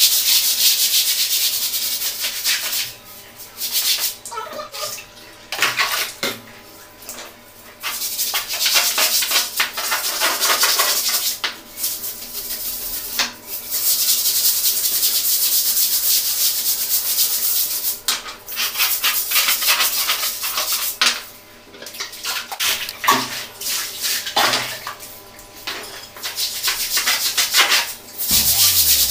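Hand scrub brush scrubbing a tiled bathroom floor in long stretches of quick back-and-forth strokes, broken by short pauses.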